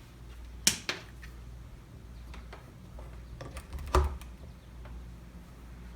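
Handling noise at a wall-mounted sprinkler timer: a few sharp clicks and taps over a low steady hum. The two loudest come about two-thirds of a second in and about four seconds in, the second with a dull knock.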